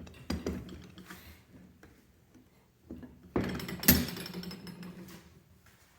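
A few knocks and clunks of welded suspension control arms being handled and set against each other on a table, the loudest about four seconds in.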